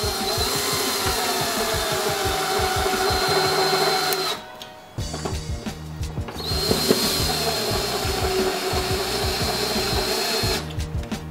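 Cordless drill with a Knife Edge Phillips bit driving two damaged screws into wood, running steadily in two runs with a pause of about two seconds between them. The bit stays in the screw heads without camming out. Background music plays underneath.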